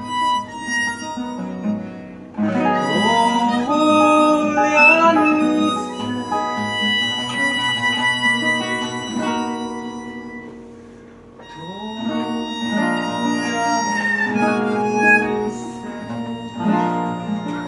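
Ten-hole diatonic harmonica playing a slow melody with bent, sliding notes over acoustic guitar accompaniment. The music fades down briefly a little past the middle, then comes back in.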